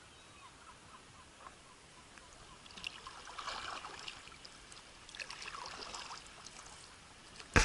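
Small waves lapping and splashing close to the microphone at water level, in two short spells about three and five seconds in, over a faint steady hiss.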